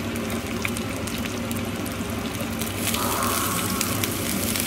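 Pork trotters frying in a pot with shallots, garlic and ginger: a steady sizzle that brightens about three seconds in, as tongs start turning the pieces.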